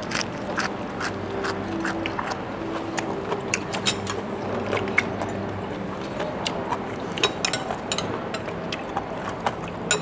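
People eating at a table: spoons clinking against bowls and plates and chewing of fried chicken, heard as many short, irregular clicks over a steady low hum.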